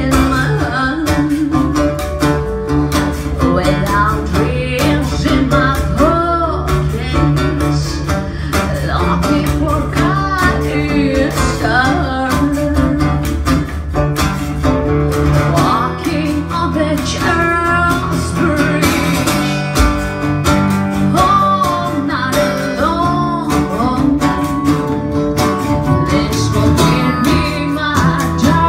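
A small band playing live: a woman singing into a microphone over acoustic and electric guitars and keyboard, with light percussion tapped on a metal tube with a spoon.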